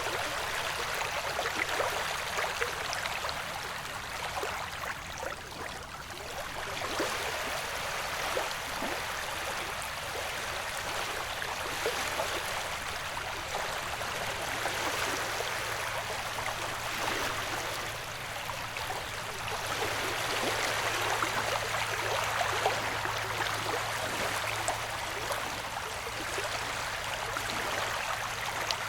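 Ocean-wave ambience used as sleep white noise: a steady wash of water that slowly swells and eases.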